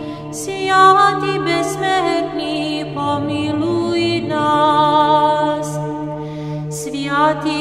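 A cappella Orthodox church choir chanting a slow, flowing melody over a steady held low drone note.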